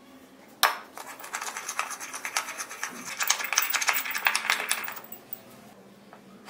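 Metal spoon stirring a thick spice paste in a small ceramic bowl: a sharp knock about half a second in, then a quick run of clinks and scrapes against the bowl for about four seconds that stops well before the end.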